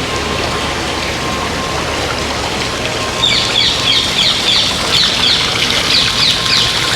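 Birds chirping in a quick run of short, high, downward notes that starts about three seconds in, over a steady rushing background noise.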